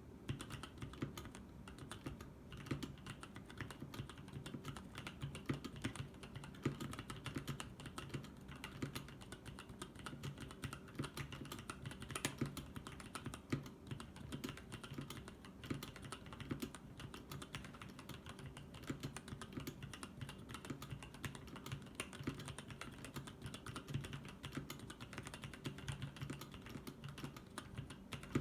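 Sprit 75 mechanical keyboard with lubed 65g Gateron Brown tactile switches and EnjoyPBT keycaps being typed on continuously: a steady, uneven stream of keystroke clacks.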